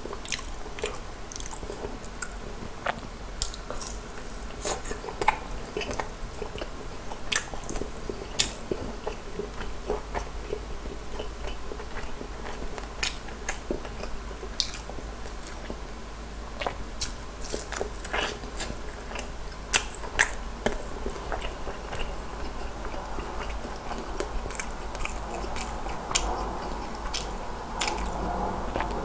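Close-up biting and chewing of crispy soy-garlic fried chicken: sharp crunches at irregular intervals over steady chewing.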